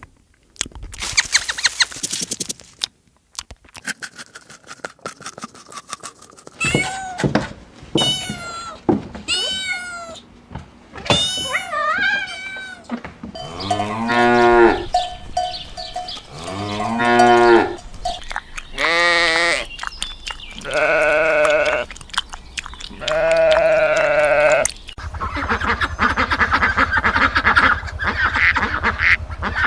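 Sheep and goats bleating in a series of separate calls, higher-pitched and gliding at first, then deeper bleats, some of them wavering. A rough buzzing noise follows near the end.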